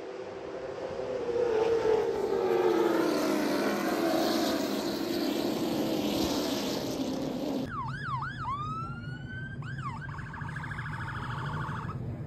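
Late model race cars roaring past in a pack, their engine note falling slowly as they go by. After a sudden cut about eight seconds in, an emergency vehicle siren sweeps up and down in a wail and yelp, then switches to a fast warble near the end.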